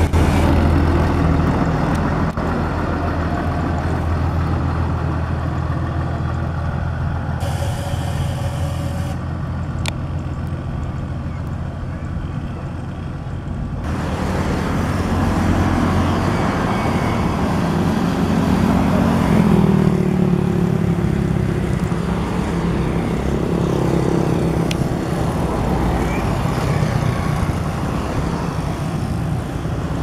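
Diesel engine of a pneumatic-tyred road roller running steadily as it rolls over fresh asphalt. From about halfway, passing motorcycles and cars add traffic noise, their engines rising and falling in pitch as they go by.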